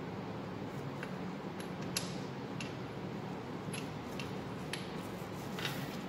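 Light metallic clicks and taps, about eight spread over a few seconds with the sharpest about two seconds in, as oiled valve lifters (tappets) are handled and slid into their bores in an engine block. A steady low hum runs underneath.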